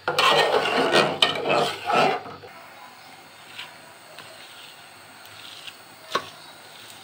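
Food being mixed: loud scraping and rubbing for about two and a half seconds, then soft, quiet rubbing with one sharp tap about six seconds in.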